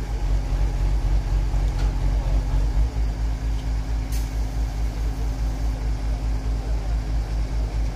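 Heavy diesel engine of a mobile crane running steadily as a deep, low rumble with an even pulse, while the crane holds a heavy load on its hook.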